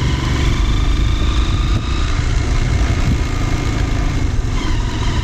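Motorcycle engine running steadily while the bike is ridden along a road, under a heavy low rumble.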